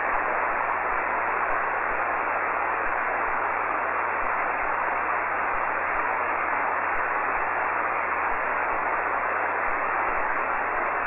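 Steady, even hiss of band noise from an HF amateur-radio receiver on 40-metre SSB, with no station on the frequency: the receiver open and listening between transmissions.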